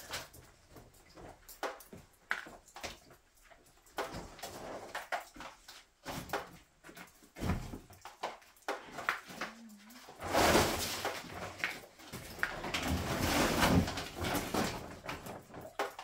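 Scattered knocks and clatter of things being handled. Two louder stretches of rough, hissing noise come about ten seconds in and again around thirteen seconds.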